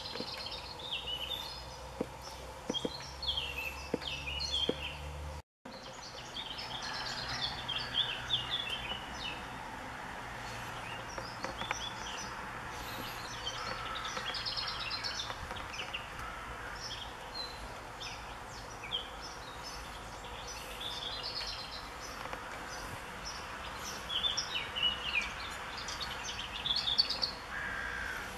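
Songbirds singing, many short chirps and trills overlapping, over a steady low background hum. The audio cuts out for a split second about five and a half seconds in.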